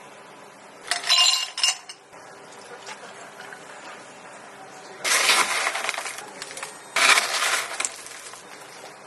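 Glassware clinking during drink preparation: a ringing clink about a second in, then two longer clattering rattles a couple of seconds apart.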